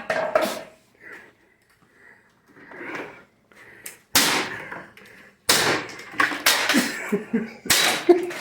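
Loud sudden bangs, the first about four seconds in and more in the last three seconds, with short gasping voice sounds among them.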